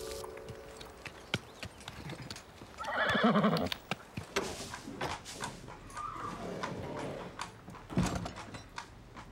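A horse whinnies once, a wavering call about three seconds in, over scattered clip-clop of hooves. A single sharp knock comes near the end.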